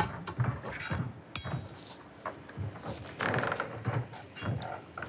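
Scattered light clicks and taps of spoons and small kitchen utensils, with faint murmuring voices.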